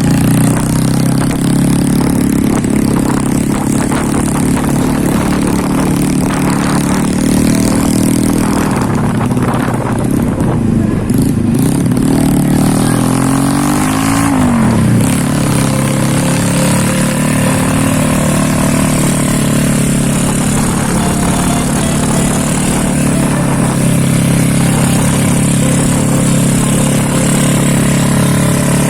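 Suzuki Smash 110 motorcycle with a Kodrat KW2 aftermarket exhaust, running under way. The engine note holds steady, drops and climbs again about halfway through as the throttle is eased off and opened, then settles.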